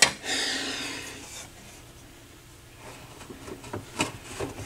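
Turntable bottom cover plate scraping against the chassis as it is lowered and slid into place, starting with a click and fading after about a second and a half. A few light knocks follow near the end as the plate is settled.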